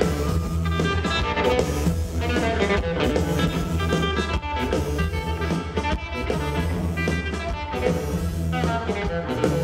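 Live blues-rock band playing an instrumental stretch on drum kit and electric guitar, loud through a festival PA, with no vocals yet.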